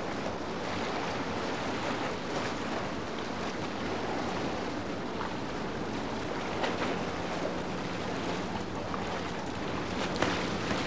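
Harbour waterfront ambience: steady wind and water noise, with a faint low hum joining about halfway through.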